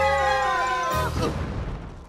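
Cartoon falling sound effect: a long, slowly descending whistle over music, cut off about a second in by a low crash as the falling figures hit the ground, which then fades away.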